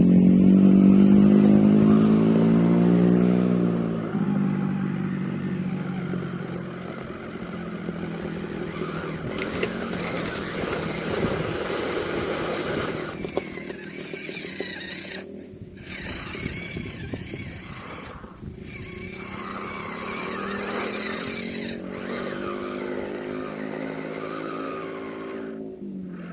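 Electric motor and gearbox of a 1:12 scale RC off-road 4x4 whining, the pitch rising and falling with the throttle, loudest in the first few seconds. A steady high whine sits over it, and the sound drops out briefly a few times.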